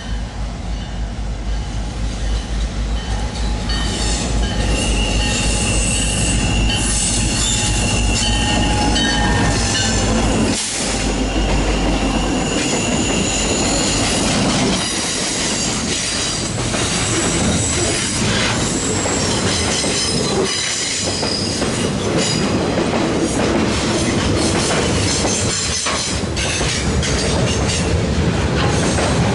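Freight train passing close, led by an EMD GP40 diesel locomotive: a pulsing low diesel rumble builds over the first few seconds and falls away about 12 s in. Freight cars follow, their steel wheels rolling and squealing, with repeated clacks as they cross rail joints.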